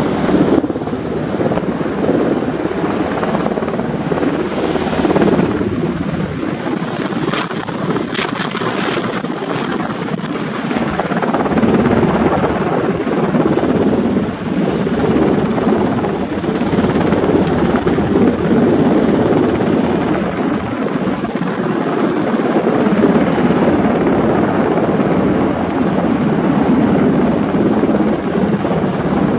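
Sikorsky UH-60 Black Hawk helicopter hovering with a sling load on a long line: its main rotor and twin turbine engines make a loud, steady, unbroken noise.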